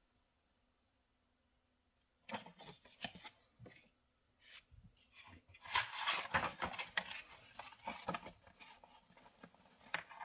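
Paper rustling and pages turning as printed instruction booklets are handled and leafed through, with small taps and scrapes of the paper. It starts after about two seconds of near silence and is loudest about six seconds in.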